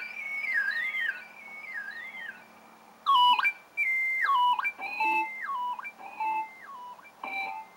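Electronic whistle-like tones from a hand-played synthesizer. They glide and wobble in pitch, then jump up and down in short stepped phrases with brief gaps.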